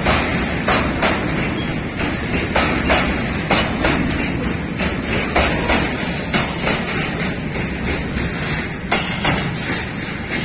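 Freight train tank and flat wagons rolling slowly past, their wheels clacking over the rail joints in paired knocks about two a second over a steady rumble.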